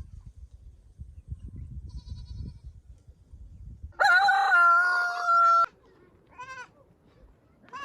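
Rooster crowing about four seconds in: one loud crow held on a steady pitch for about a second and a half, cut off abruptly. Before it, a low rumbling noise; after it, a short bleat.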